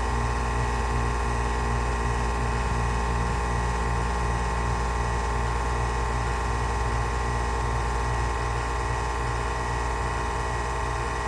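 Carrier air conditioner unit running with a steady, unchanging hum.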